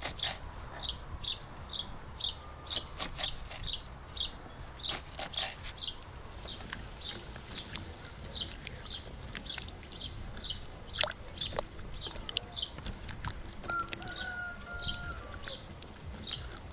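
A small songbird repeating a short high chirp about twice a second, with a few sharp clicks among the chirps. Near the end there is a brief, lower, drawn-out call.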